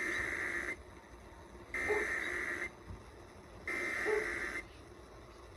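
Emergency Alert System SAME header: three bursts of digital data tones, each just under a second long with about a second's gap between them, encoding a Required Monthly Test alert.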